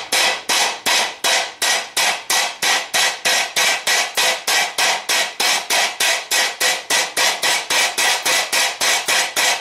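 Hand hammer striking a red-hot steel dish on a steel plate, about four ringing metal-on-metal blows a second, flattening the heated centre of the bowl into the bottom of a frying pan.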